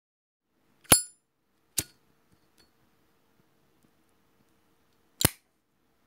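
Zippo lighter lid clicks: three sharp metallic clinks. The first rings with a bright ping, the second follows about a second later, and a third comes about five seconds in.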